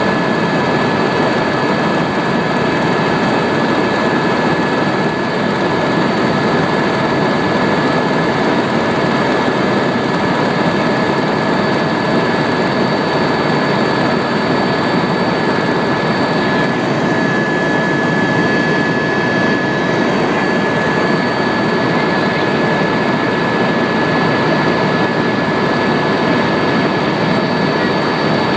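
Helicopter heard from inside the cabin during a ride: a loud, steady engine and rotor noise with a constant high whine on top.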